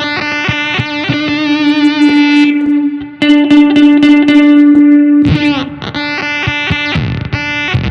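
Electric guitar played through an EarthQuaker Devices Data Corrupter PLL synth/harmonizer pedal, its master oscillator set to unison: long held notes come out as a synth tone rich in overtones. A new note is picked about three seconds in, and the note changes again a couple of seconds later.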